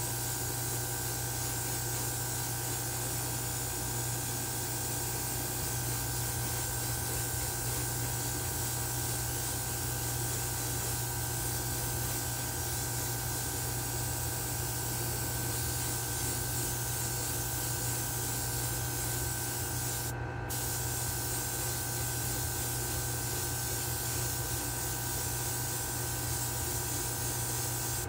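Airbrush spraying paint with a steady hiss over the steady hum of a spray booth's exhaust fan. The hiss drops out for a moment about twenty seconds in.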